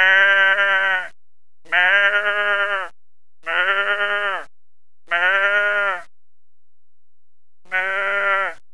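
A person imitating a goat: five bleating 'meh' calls, each about a second long with a wavering pitch, separated by short pauses, the last after a longer gap.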